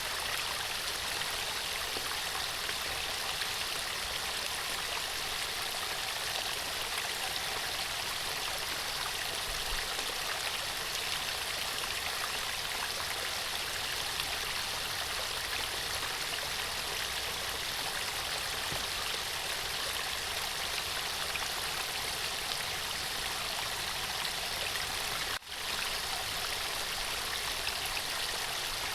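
Running water flowing steadily, an even rushing sound with one momentary break about 25 seconds in.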